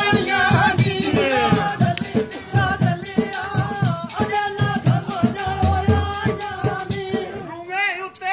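Punjabi folk music in the mahiya style: a held melodic line over fast, even percussion strokes with rattling and a low drum.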